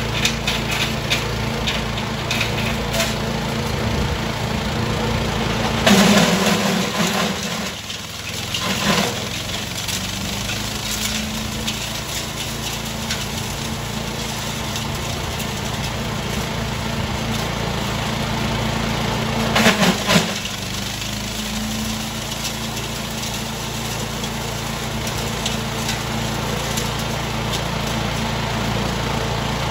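Zenoah SR110-1 11-horsepower engine chipper-shredder running steadily, with two louder bursts of branches being shredded, about six seconds and twenty seconds in.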